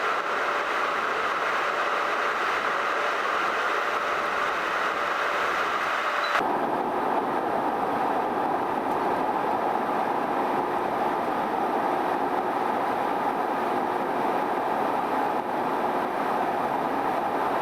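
Jet airliner engine and airflow noise during takeoff, a steady noise with a faint steady tone in it. About six seconds in, the sound abruptly turns lower and duller and then stays steady.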